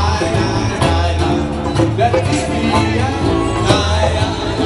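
Live band playing amplified music: a singer over electric guitars, bass and drums, with steady deep bass notes and a regular drum beat.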